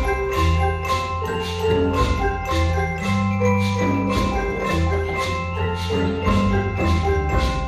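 A student percussion ensemble playing a tune on mallet instruments, glockenspiels and xylophones, over sustained low bass notes. Sharp strikes keep a steady beat of about two to three a second.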